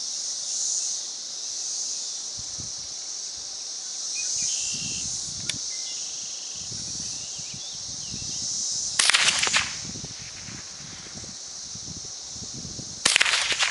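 Two shots from a Ruger 10/22 semi-automatic .22 rifle, about four seconds apart, the first about nine seconds in and the second near the end. A steady high buzz of insects runs underneath.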